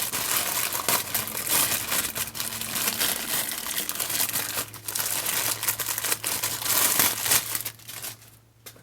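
Packaging crinkling and rustling as a microphone shock mount is unwrapped by hand, dying away near the end.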